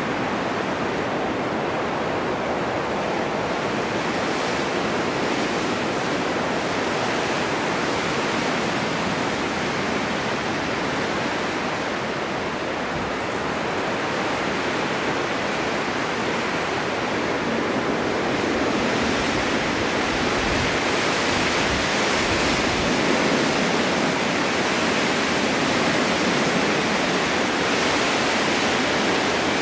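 Snowstorm wind rushing steadily, swelling a little louder about two-thirds of the way through, with a few low gusty rumbles.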